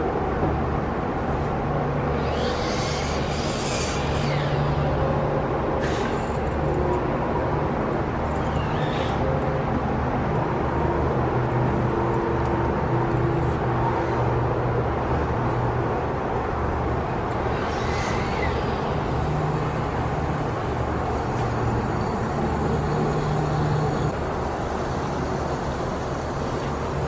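Steady low machine drone from deck-building work next door, with a brief higher hiss a few seconds in and again about two-thirds of the way through.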